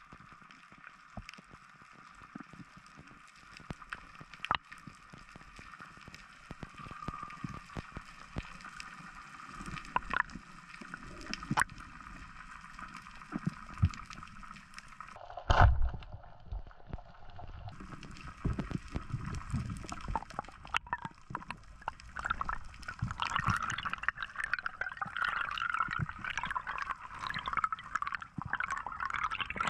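Underwater sound through a camera housing: a faint steady hiss with scattered sharp clicks, then one loud low thump about halfway through, typical of a speargun firing, followed by louder bubbling and rushing water over the last several seconds.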